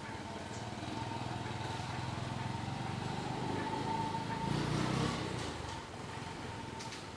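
A motor vehicle engine going by: it grows louder over the first few seconds, is loudest about four to five seconds in, then fades.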